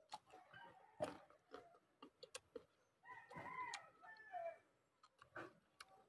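A rooster crows once, a long rising-then-falling call, starting about halfway through. Around it come close sharp clicks and crunches of a man chewing unripe mango, the loudest click about a second in.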